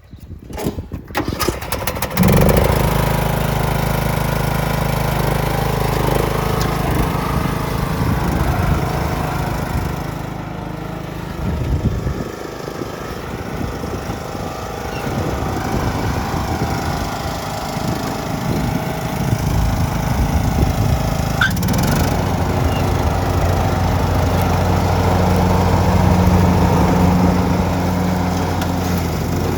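John Deere 102 riding lawn mower's engine cranking for about two seconds, then catching and running steadily, a little quieter for a few seconds near the middle.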